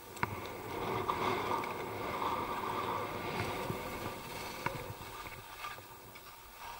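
Skis sliding and scraping over tracked snow, a steady hiss that swells about a second in and eases near the end, with a couple of sharp clicks.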